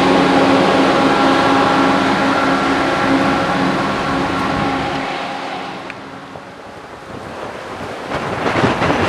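Diesel train moving away, its engine's steady drone fading as it recedes and dying away about six seconds in. Near the end wind buffets the microphone.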